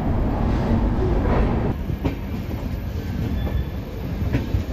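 Passenger express train rolling out of the station at low speed, heard from the coach: a steady rumble of the running gear with wheels knocking now and then over rail joints and points.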